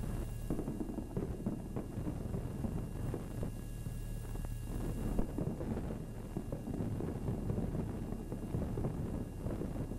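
Muffled, low-fidelity old Super 8 recording of an aerial fireworks display: a dense, steady rumble with scattered crackles and a faint hum, one slightly louder pop about five seconds in, and no distinct single bangs.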